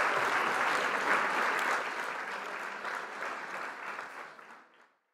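Crowd applauding, fading out to silence near the end.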